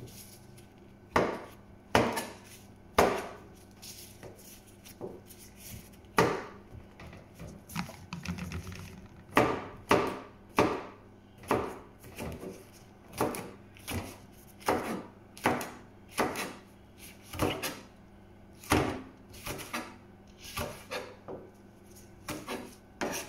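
Chef's knife slicing green chili peppers on a plastic cutting board: a sharp knock with each cut as the blade meets the board, unevenly spaced at about one a second.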